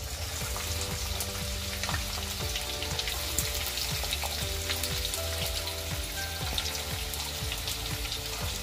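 Chopped onions sizzling and crackling in hot oil in a kadhai as they are tipped in by hand, a steady frying crackle with many small pops throughout.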